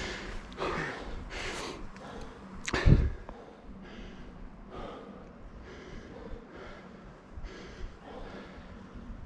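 A cyclist breathing hard after riding, one loud breath about every second, fading to softer breaths after the first few seconds. A short loud whoosh and thump on the microphone comes just before three seconds in.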